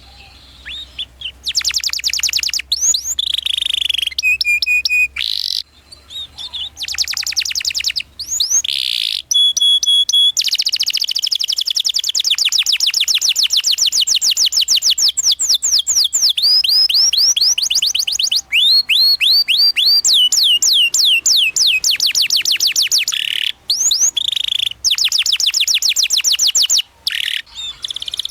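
Domestic canary singing a long song of fast rolled trills and chirps, switching from one phrase to the next with brief breaks. A long unbroken roll fills the middle, then runs into a series of quick falling notes.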